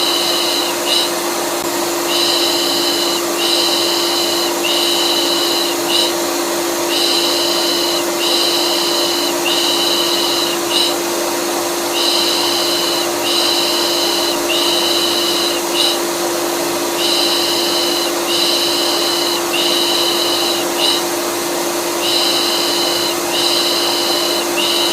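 Vacuum cleaner running steadily with a constant hum, overlaid with rhythmic 'pış pış' shushing used to soothe colicky babies: three shushes and a short one, repeating about every five seconds.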